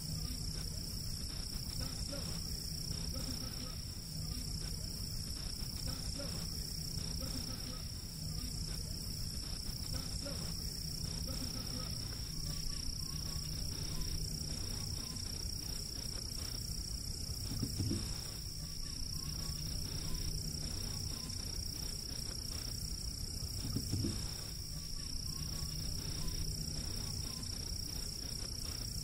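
Steady high-pitched insect chorus, typical of crickets, over a low background rumble. A brief low sound comes twice, in the second half.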